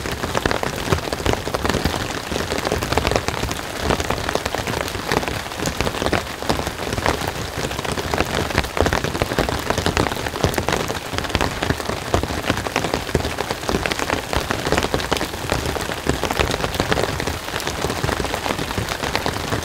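Heavy rain pouring steadily, a dense, even patter of drops.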